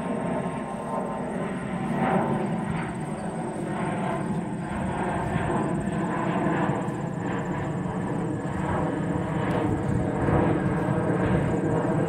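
Aircraft engine droning overhead, steady and slowly growing louder.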